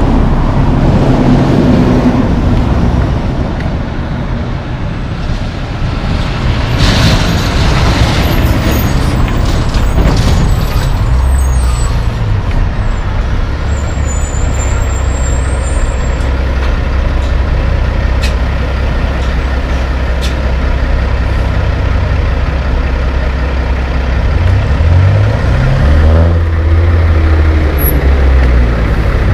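Class 8 diesel trucks, dump trucks among them, driving close by on a city street, with a steady low engine drone and tyre noise. There is a short hiss about seven seconds in, and near the end a truck engine revs up as it pulls away.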